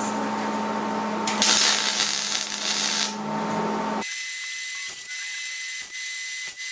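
MIG welder laying a spot weld on sheet-steel body panel: a hissing crackle lasting about two seconds, over a steady shop hum. About four seconds in, the hum cuts out and a thin high whine remains, with a few short clicks.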